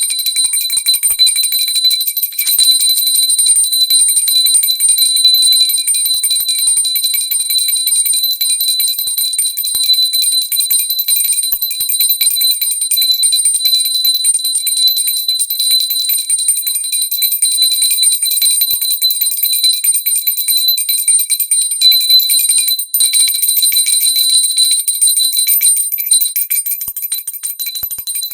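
Pooja bell rung continuously, its clapper striking rapidly so the high ringing tones never die away, with a brief break about three-quarters of the way through.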